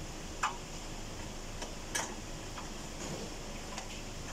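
A few light clicks and taps of parts being handled in a car's stripped front end, four or so spread over a few seconds, the loudest about two seconds in, over steady background noise.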